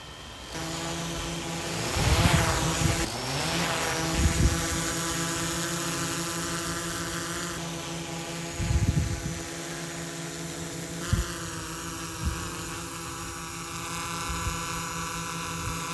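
Small DJI quadcopter's propellers humming in flight: a steady, many-toned whine from the four spinning propellers. The tone shifts about eleven seconds in, and a few brief low thumps break in now and then.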